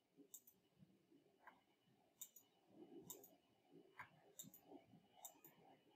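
Faint computer mouse clicks, about seven, spaced irregularly over a few seconds against near silence.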